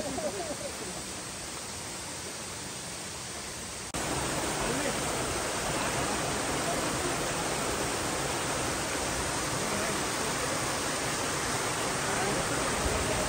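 Running water of a rocky mountain stream, a steady rush. About four seconds in it becomes abruptly louder and stays steady: the rush of a small cascade pouring into a rock pool.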